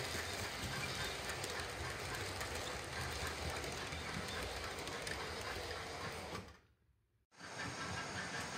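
OO gauge model trains running on the layout's track: a steady rattle of small wheels over the rails. The sound cuts out briefly about two-thirds of the way through, then the running noise resumes.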